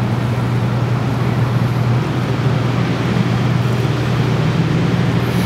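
Motor boat's engine running steadily under way, a low unbroken drone with a steady hiss above it.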